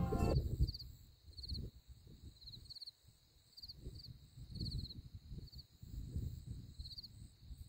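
Crickets chirping in short pulsed trills that repeat every half second to a second, over a low, uneven rumble.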